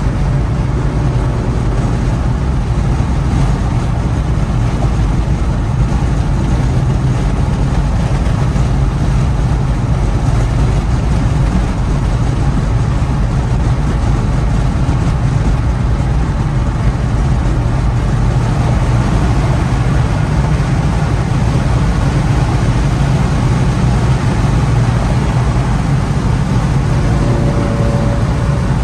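Car cruising at highway speed, heard from inside the cabin: a steady low engine drone over tyre and road noise.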